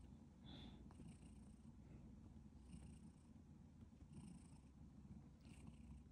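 Domestic cat purring faintly and steadily while lying at rest, a sign of a relaxed, contented cat.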